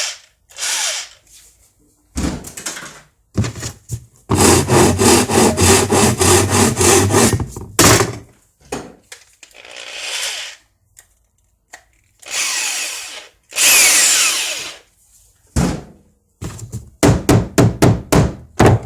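Workshop tool sounds: several separate rasping strokes, then a stretch of fast, rhythmic tool noise a few seconds long, then a quick run of about eight hammer blows near the end.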